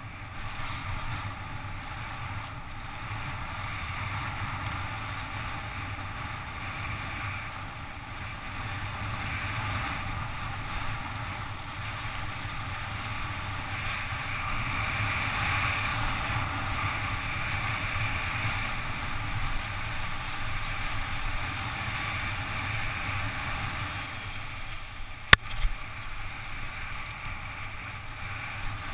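Steady rush of wind and rolling noise on a helmet-mounted action camera during a fast bicycle descent on asphalt, swelling a little in the middle. One sharp click near the end.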